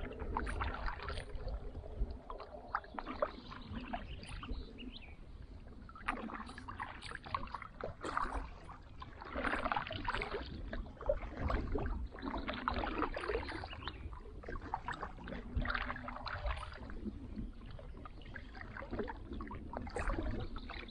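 Kayak paddling: the paddle blades dip and splash in the water in a slow rhythm, one stroke every two to three seconds, over a steady low rumble.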